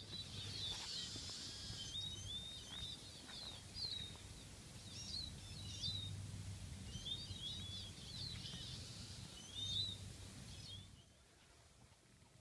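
A small flock of Eurasian siskins twittering, many short wavy chirps and trills over a low steady rumble. The calls stop about eleven seconds in.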